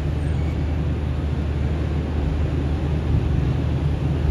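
Diesel-electric locomotive engine running with a steady low drone.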